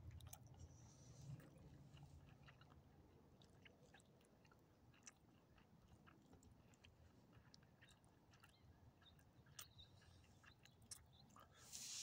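Small dog chewing food: faint, irregular wet clicks and smacks.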